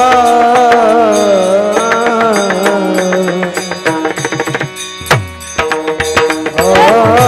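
Warkari devotional bhajan in raga Bhairavi: a singer holds long, wavering notes that slide downward, over a sustained drone, with hand-drum strokes and small cymbal clicks keeping the beat. Past the middle the held notes thin out, leaving mostly drum strokes, and the full singing comes back near the end.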